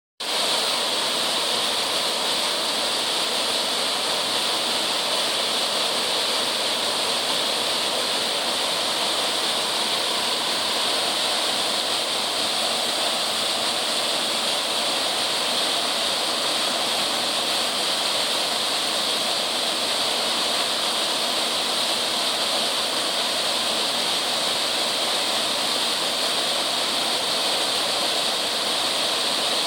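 Waterfall rushing steadily: a constant hiss of falling water, strongest in the higher tones, without a break.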